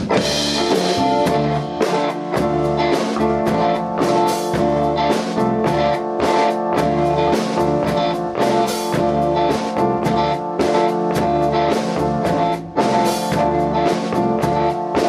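A small rock band playing an instrumental passage: electric guitar and bass over a drum kit keeping a steady beat, with held keyboard chords. The music dips briefly near the end, then carries on.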